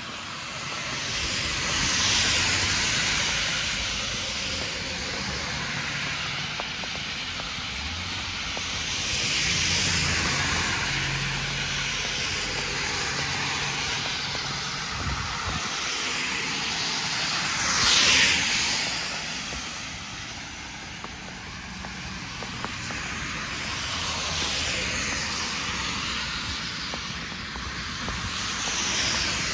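Road traffic: cars passing one after another, each a swell of tyre and engine noise that rises and fades, with the closest and loudest pass about two-thirds of the way through.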